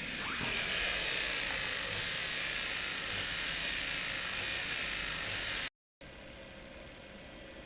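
Brushed commutator motor from an old washing machine running steadily under speed control, a whine with strong brush hiss. It cuts off abruptly about six seconds in, leaving a much fainter steady hum.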